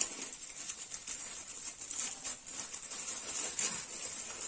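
Thin clear plastic packet crinkling and rustling in the hands as it is worked open, with small irregular crackles throughout.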